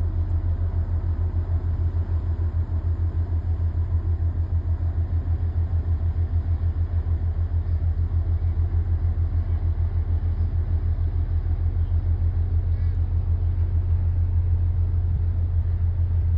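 An engine running steadily: a loud low rumble with a fast, even pulse.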